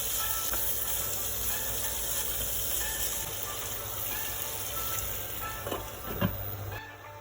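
Chicken frying in a pan with a steady sizzle. A few sharp knocks come near the end, and the sizzle drops away just before the end.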